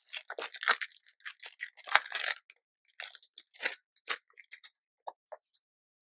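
Clear plastic bag crinkling and rustling in irregular short crackles as small craft flowers are handled and tipped out of it.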